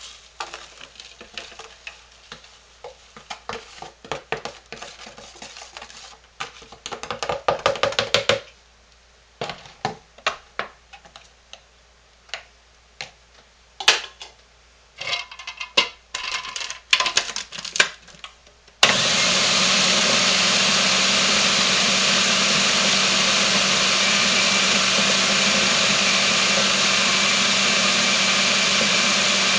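Spoon clinking and scraping as laundry powder is scooped into a plastic food processor bowl and the lid is fitted. About two-thirds of the way through, the food processor's motor starts and runs steadily, grinding soap and borax powder into detergent.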